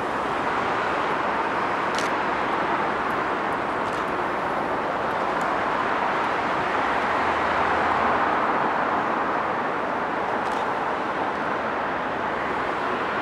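Steady city road traffic: a continuous wash of tyre and engine noise that swells a little in the middle, with a few faint sharp clicks.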